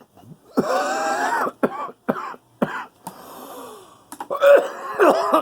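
A man coughing hard in fits after a hit of smoke: a long cough, then several short coughs, a drawn breath in the middle, and another run of coughs near the end.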